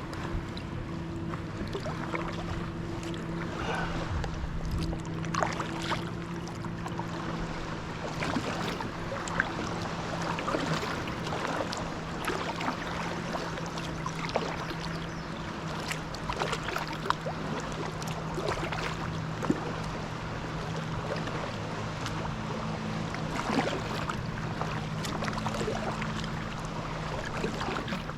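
Water splashing and lapping around a kayak's hull, with many small irregular splashes, over a steady low hum.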